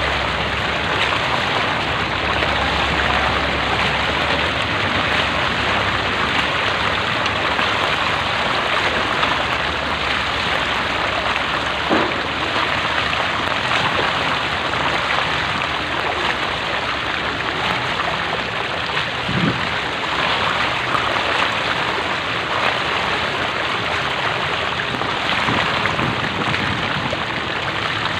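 Floodwater rushing and splashing steadily as something moves through it, with a couple of brief knocks.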